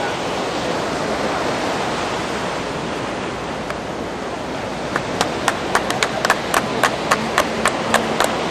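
Steady rush of surf breaking on the beach. About five seconds in, hand clapping starts at roughly three to four claps a second.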